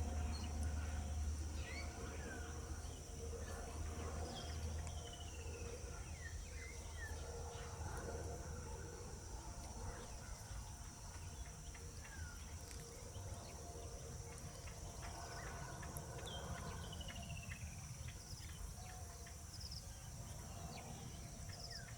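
Outdoor ambience of birds giving short chirps and falling calls over a steady high-pitched insect drone. A low rumble underneath fades away over the first several seconds.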